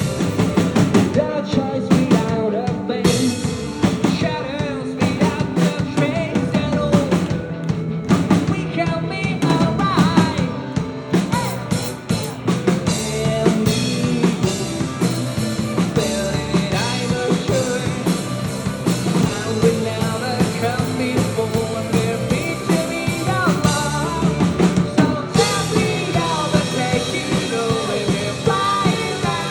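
Live rock band playing, with drum kit, guitars and bass under a sung vocal line, recorded from the audience. The sound grows fuller and brighter about 25 seconds in.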